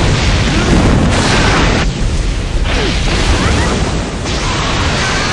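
Animated-film explosion sound effect: a loud, sustained rumbling blast with crashing rock debris.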